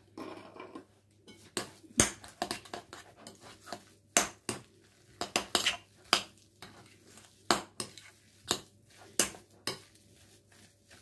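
Metal spoon clinking and knocking against a glass mixing bowl as mashed potato is mixed, in sharp irregular strikes about one or two a second.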